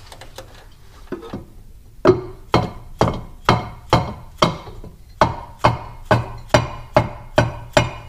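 Mallet striking a 1964 Dodge Custom 880's crankshaft pulley to knock it loose: a few light taps, then from about two seconds in a steady run of sharper blows about two a second, each with a short metallic ring.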